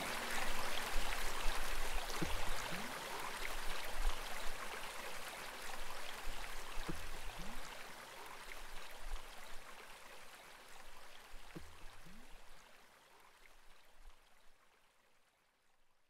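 Small brook running and babbling over pebbles, a steady rush of water that fades gradually away toward the end.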